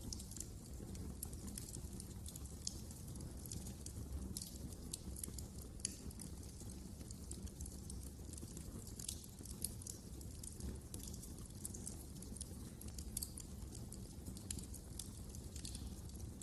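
Fireplace fire crackling, with frequent small sharp pops and a few louder ones over a steady low rumble.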